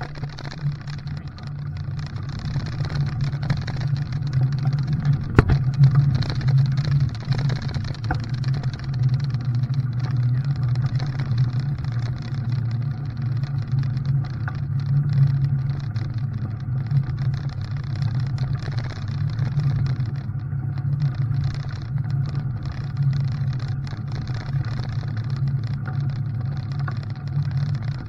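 Motor vehicle engine running steadily, a constant low drone with some rough noise over it, and a short click about five seconds in.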